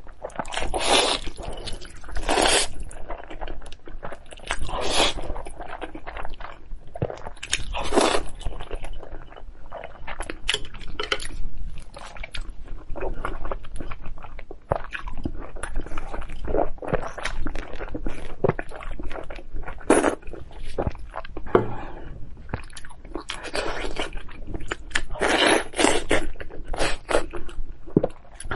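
Close-miked eating sounds: noodles slurped, then crisp crunching bites and chewing of a raw zucchini, in a run of many short, sharp strokes.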